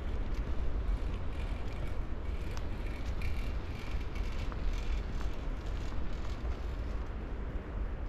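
Outdoor ambience: a steady low rumble with a few faint clicks.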